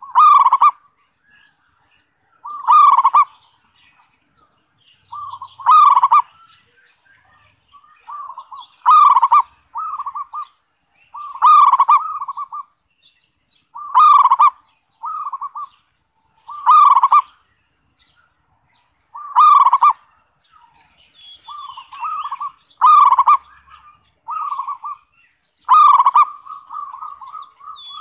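A zebra dove (perkutut) singing its 'kerot'-style song. Short cooing phrases repeat roughly every three seconds, about ten in all, with quieter notes in between.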